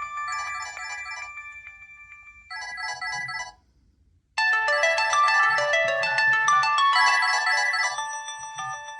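Mobile phone ringtones: one electronic melody fades away, a short different tone sounds for about a second, and after a brief silence another melody starts loudly about four and a half seconds in and keeps repeating.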